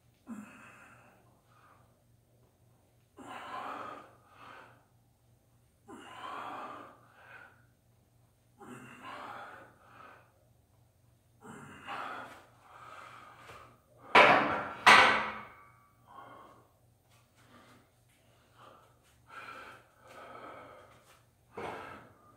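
A weightlifter's heavy breathing during barbell back squats: forceful exhales and gasps every two to three seconds, with two loud, strained breaths close together about two-thirds of the way through.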